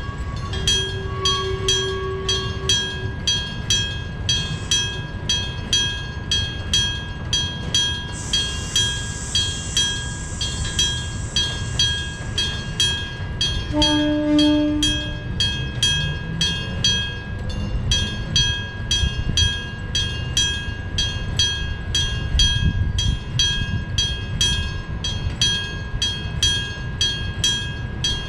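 Electric-bell railway level crossing ringing steadily, about two strikes a second, over the low rumble of a passing train driven by nose-suspended traction motors. About halfway through there is a short train horn blast, then a rising motor whine.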